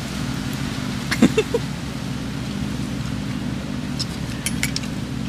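A steady low motor hum, with a few sharp clicks about a second in and again around four to five seconds in.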